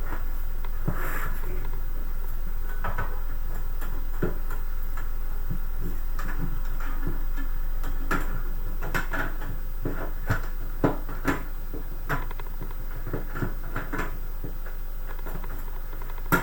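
Scattered small clicks and knocks of cables and parts being handled and fitted inside a desktop PC case, coming more often in the second half, over a steady low hum.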